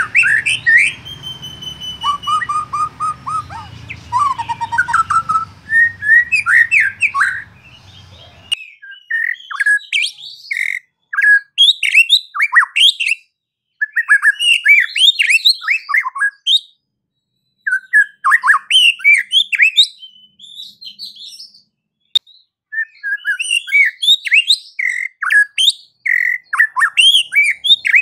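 White-rumped shama (murai batu) singing: fast, varied phrases of sweeping whistles and chattering notes, broken by short pauses. A low hum lies under the song for roughly the first eight seconds. This is song of the kind used as a provocation track to rouse other shamas.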